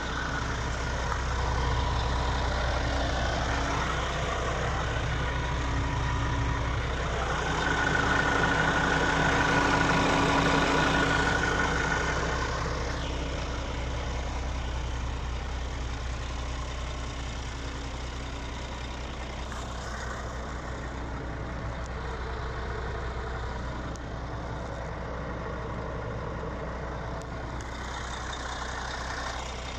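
Scania R450 Euro 6 truck's straight-six diesel idling steadily. It grows louder for a few seconds about a third of the way in.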